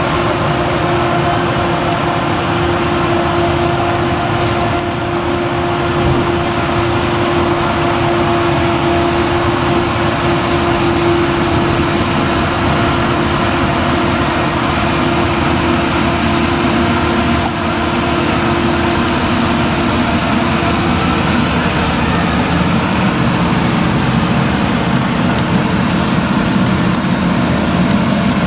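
Claas Jaguar 970 forage harvester's V8 engine and chopper running steadily under load as it chops a standing crop. A tractor pulling the silage trailer alongside runs with it. The whole is a loud, even drone with a constant hum.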